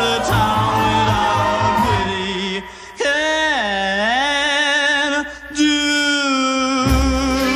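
Male pop singer with an orchestra, holding long, wavering final notes. The band thins out twice, leaving the voice almost alone, and comes back in full near the end.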